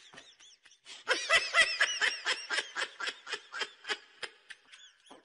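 A person laughing: a long run of quick, high-pitched 'ha-ha' bursts, about six a second, picking up again after a short break about a second in.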